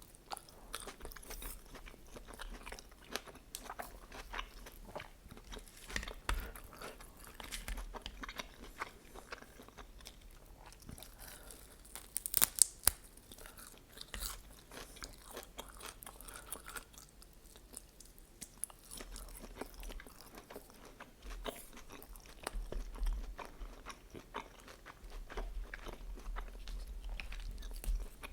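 Close-miked ASMR eating: a person biting and chewing a chicken lyulya kebab with vegetables, with continual wet chewing and crunches. A cluster of louder, sharp crunches comes about twelve seconds in.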